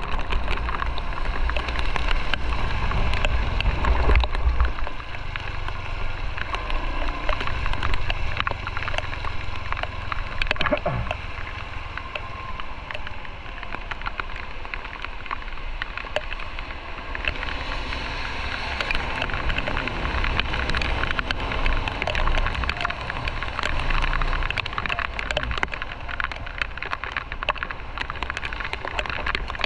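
Raindrops ticking steadily on a motorcycle-mounted camera over a low rumble of wind and engine from the moving motorcycle. The rumble is heaviest for the first few seconds.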